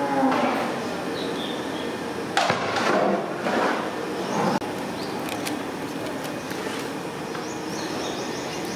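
A long metal spatula scrapes and knocks against a large aluminium cooking pot as chicken pieces in thick masala are stirred and tossed. There is a cluster of strokes between about two and four and a half seconds in, over steady background noise.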